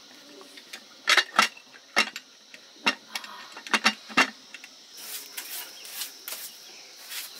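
Sharp metallic clicks and knocks of an aluminium pressure cooker's lid handle being worked and clamped shut, about seven clicks over four seconds. Then a wood fire crackles more softly.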